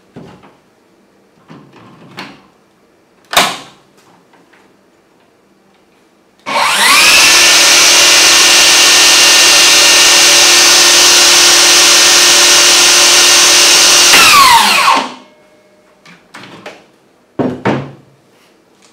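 DeWalt DCS7485 cordless table saw run with no cut. After a few clicks and a sharp knock, the motor starts about six seconds in, whines up to speed within a moment and runs steadily for about eight seconds, then winds down quickly. A few handling knocks follow.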